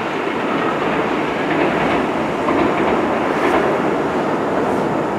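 Electric train running on the tracks, a steady noise of wheels on rails that swells a little through the middle.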